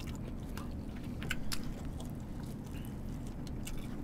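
A person chewing cheese-filled toast, with scattered small wet mouth clicks over a low steady hum.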